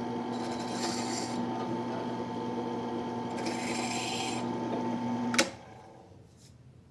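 Benchtop drill press running, its small bit pecking twice into a G10 knife handle scale with short bursts of cutting hiss, then the motor stops with a sharp click about five seconds in.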